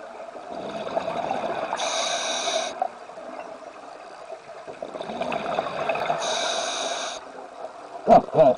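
Scuba diver breathing through a regulator underwater: two slow breaths, each a rush with a hissing top, then loud bubbling gurgles near the end.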